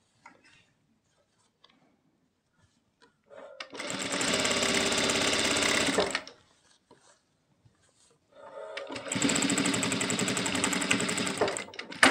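JACK industrial lockstitch sewing machine running in two spurts of about two to three seconds each, with a short pause between, as it stitches a collar onto a kurti neckline. A sharp click comes near the end.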